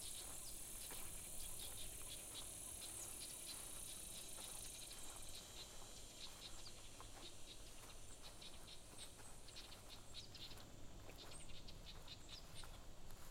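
Faint forest ambience: a steady high insect buzz that fades about five seconds in, with many short ticks and a few brief high bird chirps in the second half.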